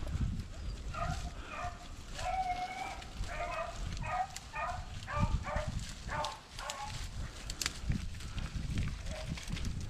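Rabbit hounds baying in a run of short, repeated calls as the pack runs a rabbit's track, with a low rumble underneath.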